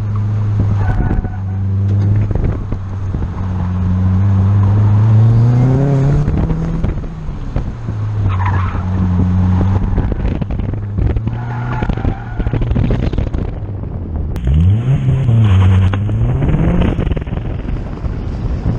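Car engine heard from inside the cabin during an autocross run, revving up through the gears and falling back as the driver lifts and shifts. Tyres squeal briefly through corners several times. After about 14 seconds there is a sharp rev up and down.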